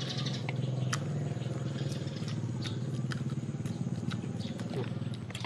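A steady low mechanical hum, like a motor running, with scattered small clicks over it.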